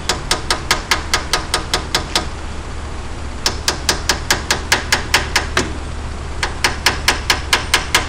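Rapid light hammer taps, about six a second, on an old wheel bearing held against a new rear wheel bearing to drive it evenly into a Ford 8.8 axle housing, metal on metal. The taps come in three runs with two short pauses between.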